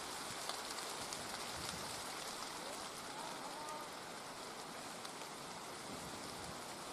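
Steady rain falling, an even hiss with scattered patter of drops.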